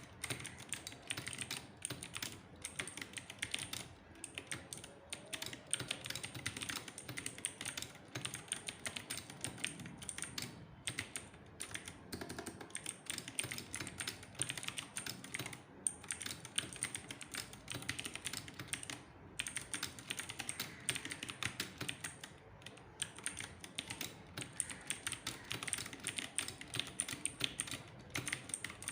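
Typing on an E-YOOSO Z686 compact mechanical keyboard: a fast, continuous run of key clicks and clacks, broken by a few brief pauses.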